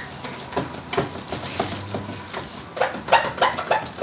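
A cloth rubbed hard back and forth over a plastic headlight lens, giving short rhythmic squeaks about three to four times a second, louder in the last second or so.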